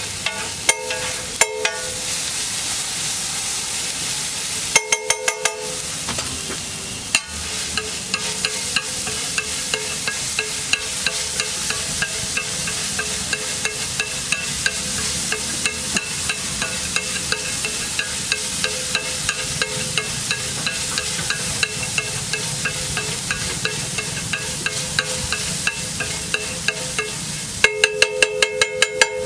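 Egg dish frying on a hot flat griddle with a steady sizzle, while a metal spatula clinks against the griddle in fast runs of ringing strikes near the start, about five seconds in and near the end, and taps more lightly and regularly in between.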